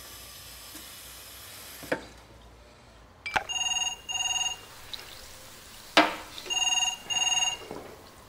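A telephone ringing in a double-ring pattern, two double rings about three seconds apart. Sharp knocks come about two seconds in, just before the first ring and just before the second; the last knock is the loudest sound.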